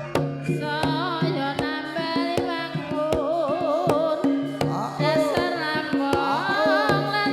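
Campursari music: a melody with vibrato and pitch slides over a steady bass line, driven by frequent sharp hand-drum strokes in the style of a Javanese kendang.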